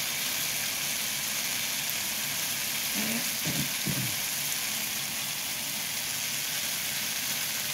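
Whole tomatoes sizzling in hot oil in a frying pan, a steady hiss.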